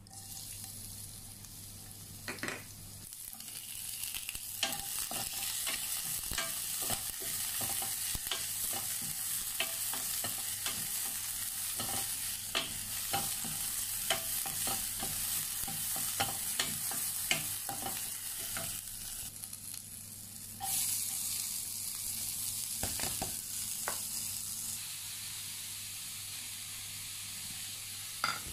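Sunflower oil sizzling in a stainless steel pan as grated cauliflower and vegetables fry, with a wooden spatula stirring and scraping against the pan in frequent sharp clicks. The sizzle gets louder about two-thirds of the way through.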